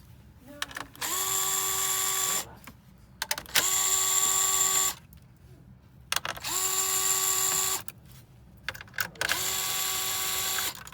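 Small power screwdriver running in four short spurts of about a second and a half each, a steady whine that rises quickly in pitch as each one starts, backing out the screws of a computer case.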